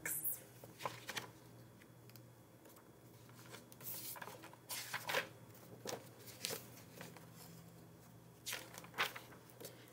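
Pages of a picture book being opened and turned: a handful of short paper rustles and flaps.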